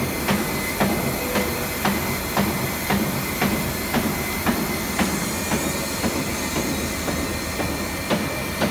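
CNC foam cutting machine running: a steady mechanical noise with a sharp click about twice a second.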